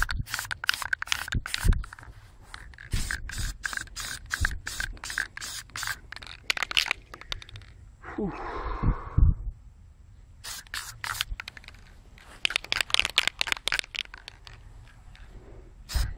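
Aerosol spray paint can (Krylon Camouflage Sand) sprayed in many short bursts, a few a second, pausing for a while in the middle. Near the middle there is a brief different sound that falls in pitch.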